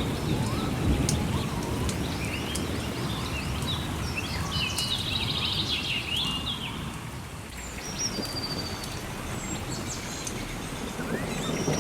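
Steady rain with thunder rumbling off at the start, birds chirping in short trills through the middle, and sharp clicks of a crackling wood fire.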